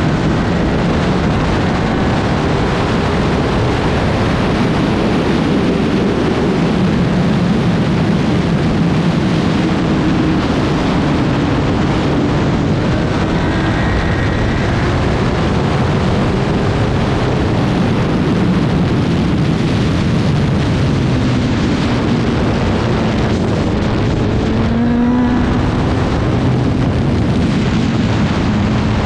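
Racing motorcycle engine running hard on track, its note rising and falling with the throttle and gear changes, under a constant loud rush of wind.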